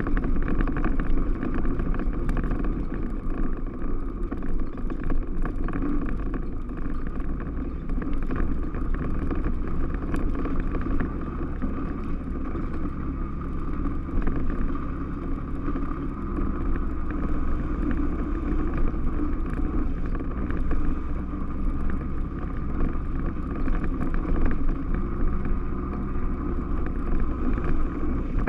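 Yamaha Rhino 660 side-by-side's single-cylinder four-stroke engine running steadily while the vehicle is driven along.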